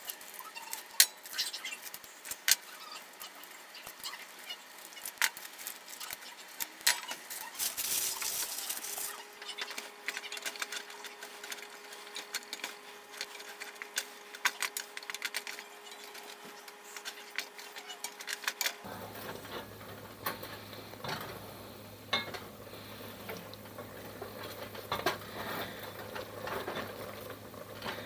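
Plastic candy-cane wrappers crinkling and hard peppermint candy clinking against a metal pot, then a wooden spoon stirring and knocking in the pot as the candy melts in a little water. The sound is mostly scattered sharp clicks and knocks, with a crinkling stretch about eight seconds in.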